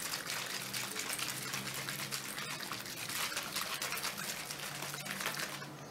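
A bottle of water, rose water and glycerin being shaken hard by hand, the liquid sloshing inside in a quick, continuous swishing rattle. It stops abruptly just before the end.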